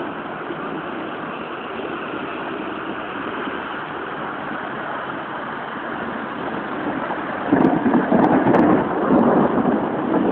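Steady rain falling. From about seven and a half seconds in, a louder, uneven rumbling swell rises over it.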